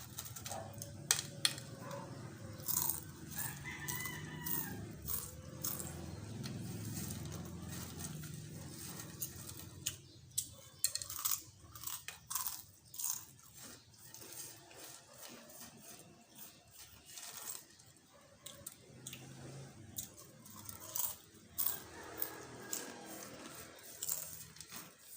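Chips being bitten and chewed close to the microphone, a run of sharp, irregular crunches.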